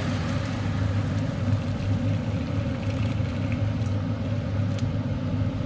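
A steady low hum with an even hiss over it, like an appliance motor running.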